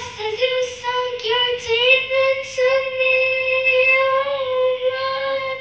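A young girl singing into a handheld microphone: a few short sung words, then one long held note from about two seconds in.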